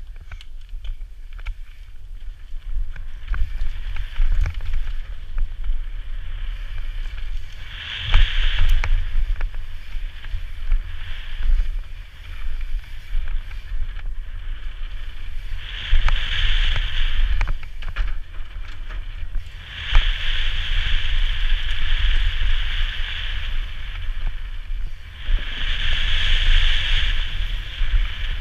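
Mountain bike descending a rough dirt trail: a steady rush of wind on the camera microphone over the low rumble and rattle of tyres and frame on rocks and roots, with occasional hard knocks from landings. Several stretches of a high buzzing whine, each lasting one to three seconds, rise over the rumble.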